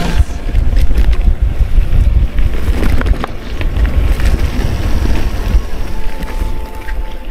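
Wind buffeting the microphone of a chest-mounted action camera on a mountain bike descending a forest trail, a loud, deep rumble, with tyre noise over pine needles and scattered clicks and rattles from the bike.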